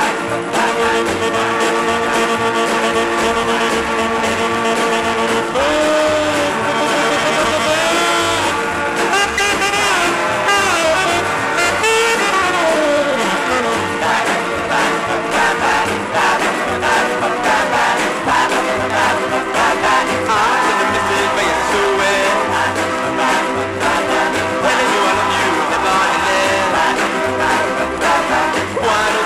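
Instrumental break of a late-1950s rocker blues record: the band playing over a steady beat without sung lyrics, with held and sliding melody notes.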